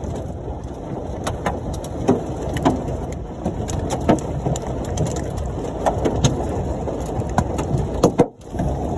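Golf-ball-size hail and heavy rain pelting a Ford Mustang, heard from inside the car: a steady rush of rain with sharp, irregular knocks of individual hailstones striking the roof and body, about one or two a second. The sound cuts out for a moment near the end.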